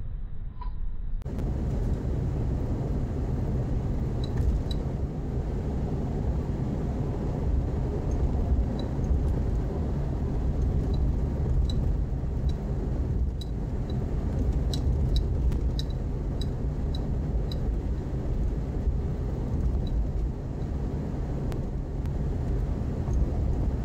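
Steady road and engine rumble of a car driving on the freeway, heard from inside the cabin through a dashcam's microphone. It comes in fully about a second in, with faint scattered ticks in the middle.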